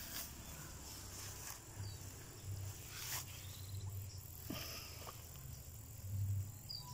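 Insects chirring in a steady high trill over a faint low rumble, with a few faint clicks.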